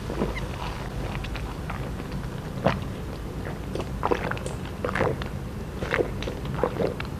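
A person gulping a foamy, fizzy malt drink from a plastic cup in a string of wet swallows, picked up close by a clip-on microphone; the gulps come sparsely at first, then about twice a second from about two and a half seconds in.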